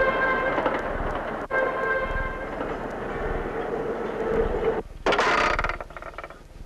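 A train running past: a rumbling, rattling noise with a steady horn tone held over it. It cuts off abruptly about five seconds in, followed by a brief hiss.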